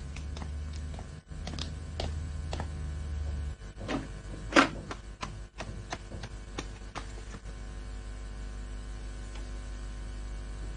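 Light footsteps and knocks on a wooden floor, irregular and about one every half second, with one louder knock about four and a half seconds in, over a low steady hum that thins about three and a half seconds in.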